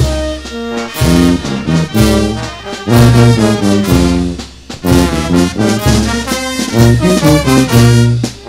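Brass band playing music for the Negritos de Huánuco dance: trumpets and trombones carry the melody in sustained notes over low bass notes, with a regular pulse.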